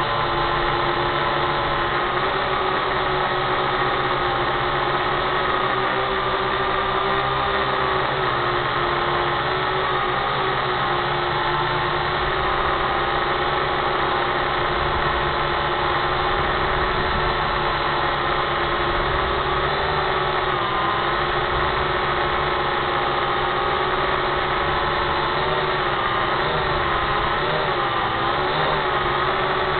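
Small drone's electric motors and propellers buzzing steadily, a whine of several tones held at one pitch, which wobbles up and down for a few seconds near the end.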